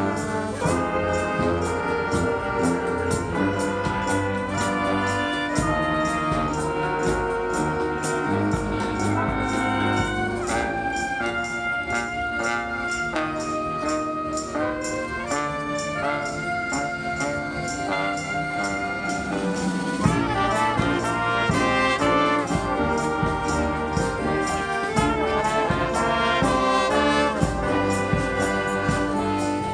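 Street marching band of brass and drums playing a tune live: trumpets and trombones over a steady drum beat. The band thins out to a few high held notes partway through, then comes back fuller with a heavier bass about two-thirds of the way in.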